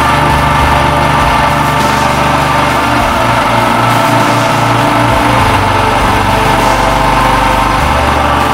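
Single-cylinder air-cooled motorcycle engine, repurposed as a pump motor, running steadily at constant speed while it drives a centrifugal water pump through a shaft coupling.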